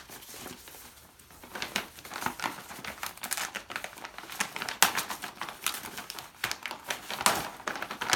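Wrapping paper being crinkled and torn by hand as a gift item is unwrapped, with irregular crackling rustles.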